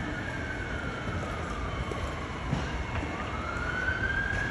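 Emergency vehicle siren wailing: one tone that falls slowly for about three seconds, then climbs back up again.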